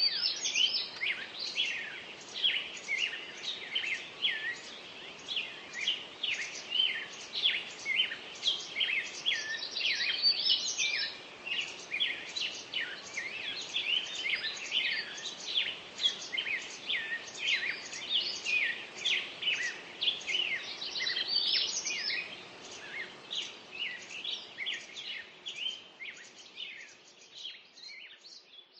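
Birds singing: a dense run of short, high chirps, several a second, fading out near the end.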